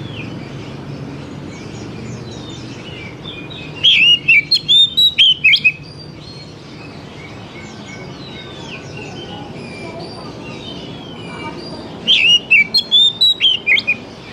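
Oriental magpie-robin singing two loud bursts of quick, swooping whistled notes, about four seconds in and again about twelve seconds in. Fainter chirping and a low steady hum run underneath.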